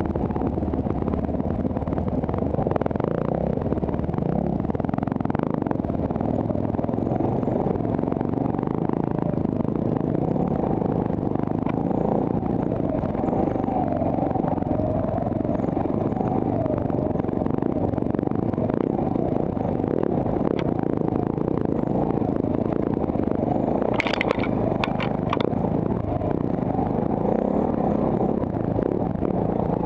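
Dirt bike engine running steadily under way on a rocky trail, heard close from the bike itself, with a few sharp clicks of clatter late on.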